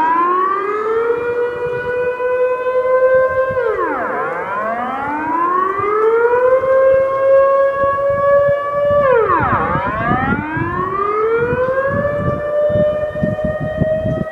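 Dutch air raid siren wailing during its monthly test: the pitch climbs for about two seconds, holds, then drops away, the cycle repeating about every five and a half seconds.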